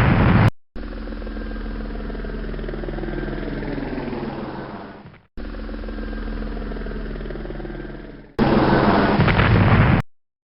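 Added sound effects: a helicopter-style whirring hum plays twice, the first time fading out, then a loud explosion-like blast cuts in near the end and stops abruptly.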